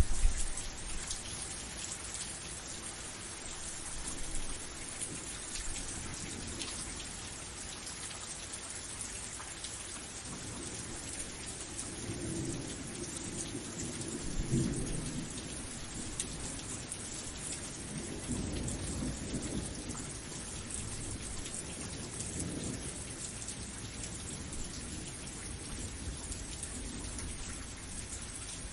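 Steady rain falling, with low rolls of thunder rumbling in the distance, mainly around the middle of the stretch and again a little later.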